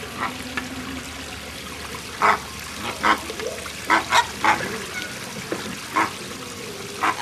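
Flamingos honking: a series of short, bark-like calls, several in quick succession about two to five seconds in, over a steady trickle of shallow water.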